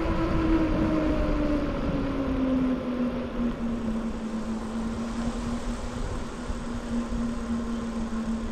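Knobby mountain-bike tyres humming on smooth fresh asphalt, one clear tone that slowly falls in pitch as the bike slows, over a low wind rumble on the microphone.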